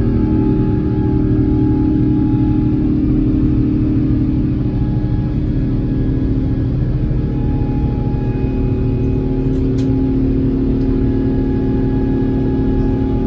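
Airbus A350-1000's Rolls-Royce Trent XWB jet engines heard from inside the cabin at high thrust during takeoff: a loud, steady rumble with a constant hum.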